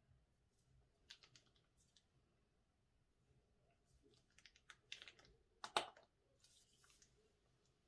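Faint, scattered soft clicks and crackles as thick slime is squeezed from a plastic piping bag into a glass bowl. One louder click comes a little before six seconds in.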